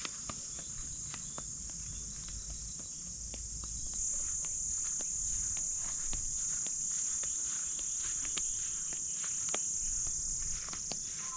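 Steady high-pitched insect chorus, a little louder from about four seconds in, with scattered light crunches of footsteps in dry grass.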